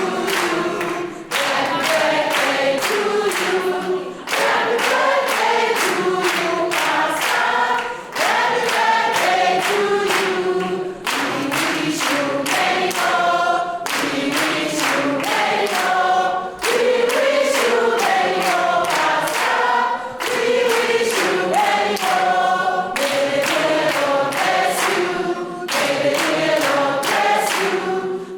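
A choir singing a gospel worship song in harmony over a steady rhythmic beat.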